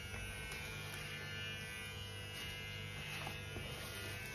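Electric hair clipper running with a steady buzzing hum while trimming hair at the side of the head.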